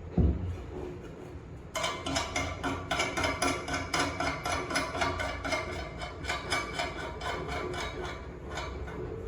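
A single thump, then metal hand tools clattering and clinking against each other for several seconds as they are rummaged through.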